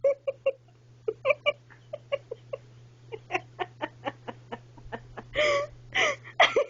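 A person laughing in a long run of short breathy pulses, with two longer vocal bursts near the end, over a steady low electrical hum.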